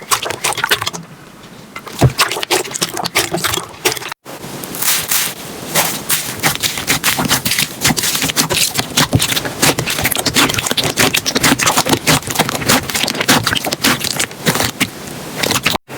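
Slime being squished and poked by hand: a dense run of sticky clicks and crackles. There is a single sharp knock about two seconds in, and abrupt cuts about four seconds in and near the end.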